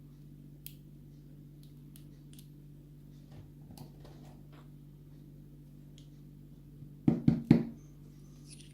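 Faint light clicks and scratches of small lock pins and parts being handled during disassembly, over a steady low hum. About seven seconds in there are three quick, loud bursts close together.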